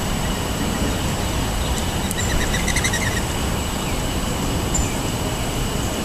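Steady rumble of road traffic. About two seconds in, a bird gives a quick run of short, rapidly repeated notes lasting about a second.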